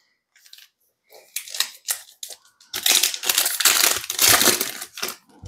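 Plastic foil wrapper of a Panini Prizm trading-card pack crinkling as it is handled and torn open. Sporadic crackles begin about a second in, then turn into a dense stretch of crinkling from about the middle to near the end.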